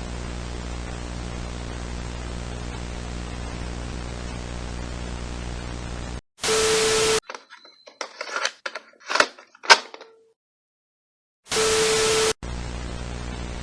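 Electronic static: a steady buzzing hiss with a low hum. Just past six seconds in it drops out and is replaced by a loud burst of noise carrying a steady tone, then a string of glitchy clicks and crackles, a moment of silence, and a second burst of noise with the same tone, before the buzzing static returns near the end.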